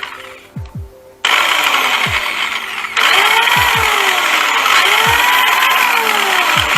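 Electronic background music with deep falling bass drops and sweeping synth glides. It cuts in loud about a second in and swells again about three seconds in.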